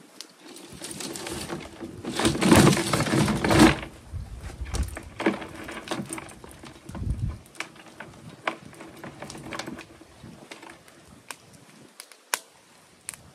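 Steel traps and their chains clinking and rattling as they are handled, with a louder rattle about two seconds in, then scattered metallic clicks.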